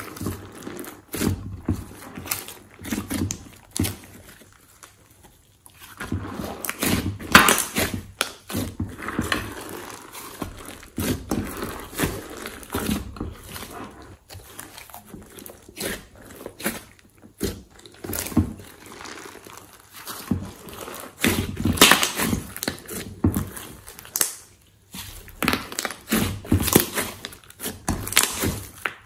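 Glossy slime being squeezed, stretched and pressed by hand in a glass dish: irregular squishing with quick clicks and crackles, easing off briefly about five seconds in.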